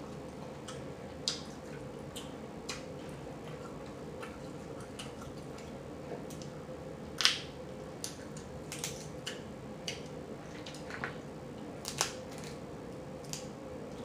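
Scattered sharp clicks and crackles of boiled shellfish shells being pulled apart and cracked by hand, loudest about seven seconds in and again at twelve seconds, over a faint steady hum.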